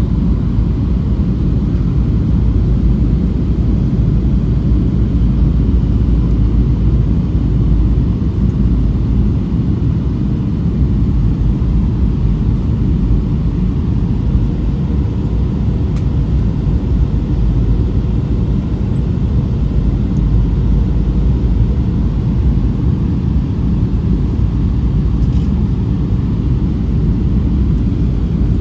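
Steady low rumble of an airliner's engines and airflow, heard from inside the passenger cabin in flight.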